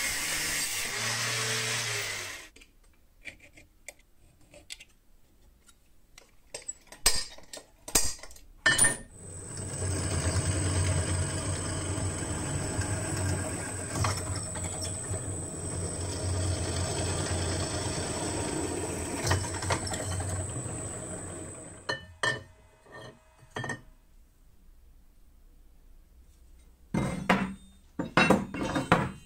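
An angle grinder cutting steel, stopping about two seconds in, followed by scattered knocks and clicks. From about nine seconds a bench drill press runs steadily for around twelve seconds with a high whine and a low hum while drilling a steel square tube. Near the end, laser-cut steel plates clink and knock against a wooden bench.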